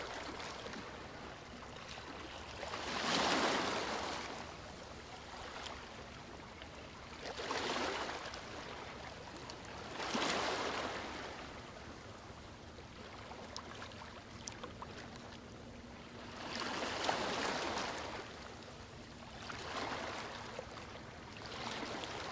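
Sea waves washing in on a shore: a hissing surge that swells and fades away five or six times, a few seconds apart.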